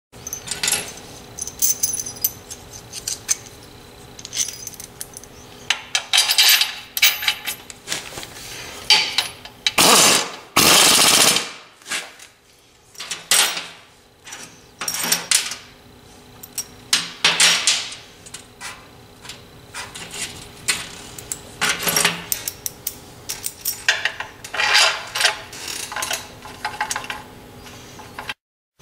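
Bolts being run into a bell housing with a power driver, in short bursts with one longer run about ten seconds in, mixed with clanks of metal parts and tools.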